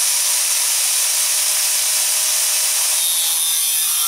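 Corded Makita angle grinder with a thin cut-off disc running at full speed with a steady high whine. Near the end the disc bites into a rusty steel bar, and the motor's pitch falls under the load as it starts cutting.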